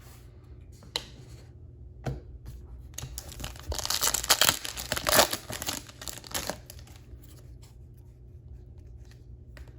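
Foil trading-card pack wrapper being torn open and crinkled: a couple of light clicks, then about three seconds of tearing and crinkling near the middle, then quieter handling.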